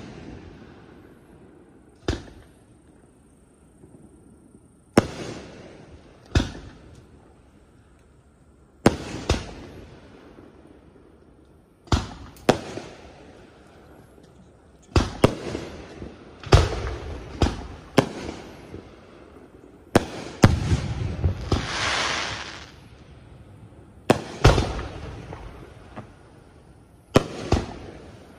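Aerial firework shells bursting, heard from middle distance: sharp booms every few seconds, each trailing off in a rumbling echo. The bursts come closer together after about halfway, with a hiss lasting a couple of seconds in the busiest stretch.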